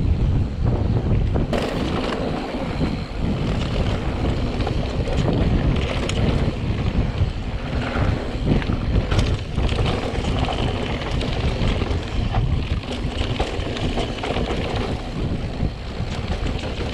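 Wind buffeting the microphone of a camera on a mountain bike ridden along a dirt trail, a heavy steady rumble. Frequent short knocks and rattles from the bike and tyres running over the rough ground are scattered through it.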